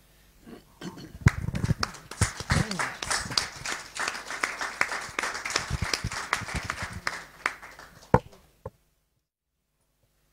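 Audience applauding: dense clapping starts about a second in, dies away by about eight seconds with a few last claps, then the sound cuts off.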